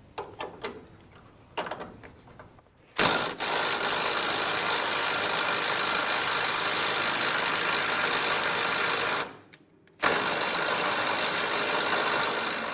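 Impact wrench hammering on a seized motor mount bolt that won't break loose: a few small clicks, then about six seconds of steady hammering, a brief stop, and a second run of a couple of seconds.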